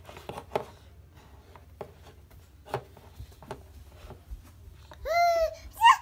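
Light clicks and knocks of plastic toy dinosaurs handled and set down on a tabletop. About five seconds in, a toddler gives one high-pitched vocal call that rises and falls in pitch.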